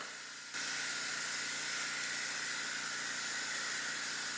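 A steady hiss that comes on suddenly about half a second in, from building work being done on a house right outside the window.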